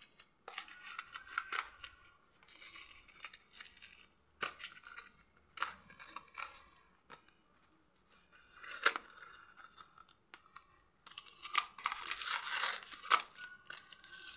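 A paper medicine pouch being torn open by hand in a series of short rips and crinkles with sharp snaps. The longest and loudest tearing comes near the end.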